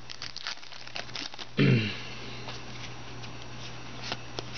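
Hands flipping through a stack of trading cards, with light clicks and flicks of the card edges. About one and a half seconds in, a short vocal noise drops sharply in pitch, the loudest moment.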